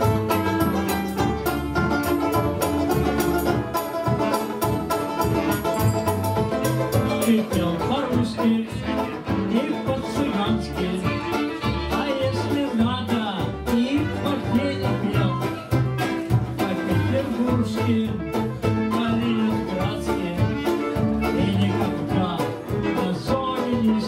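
Live acoustic band playing an instrumental passage: a banjo strumming a steady rhythm, with fiddle, clarinet and double bass.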